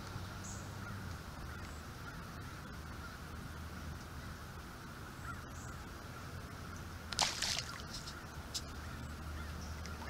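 A brief splash on the pond surface about seven seconds in, followed by a few small drips or ticks, over a steady faint outdoor background.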